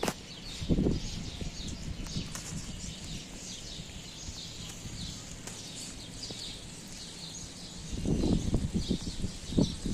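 Steady rain with small birds chirping, and a few soft low thumps about a second in and again near the end.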